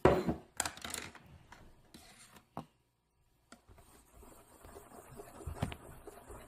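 Small handling knocks and scrapes while salt is added to a bowl of slime mixture: a sharp knock at the start, a few lighter clicks over the next two seconds, a dead gap of about a second near the middle, then faint rustling with one more light knock.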